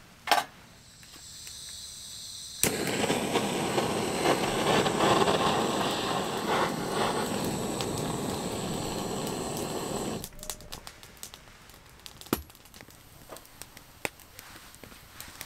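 Handheld butane torch: a faint gas hiss, then the flame lights abruptly and runs as a loud steady rush for about seven seconds against the kindling before being shut off suddenly. After it, the burning kindling gives sparse crackles and pops, and there is a single knock of wood just after the start.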